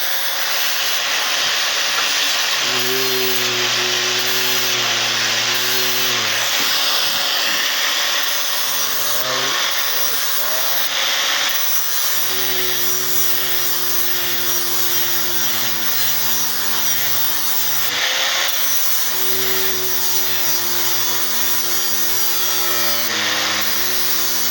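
Angle grinder with a 60-grit flap disc grinding the steel edge of a lawn mower blade to sharpen it, a harsh continuous hiss. A lower motor hum comes and goes three times as the disc is worked along the edge.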